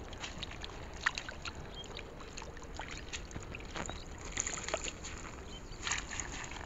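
Dozens of small fish splashing and flicking in shallow water caught in the bag of a lift net, with the water sloshing in the mesh. A quick patter of light splashes, with a few louder ones past the middle and near the end.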